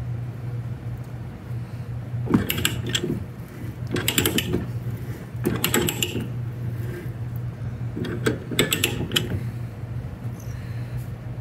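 Ratcheting pipe-threader die head being worked on a pipe held in a vise: its pawl clicks in four quick runs of ticks as the handle is swung back and forth. A steady low hum runs underneath.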